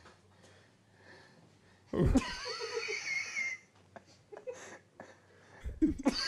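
A person's high-pitched, wheezing laugh, starting about two seconds in and lasting about a second and a half. A second laugh starts just before the end.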